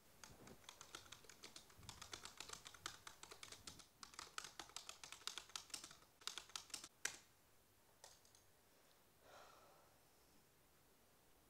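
Typing on a computer keyboard: a fast run of key clicks for about seven seconds, ending in one louder keystroke, then a couple of stray clicks.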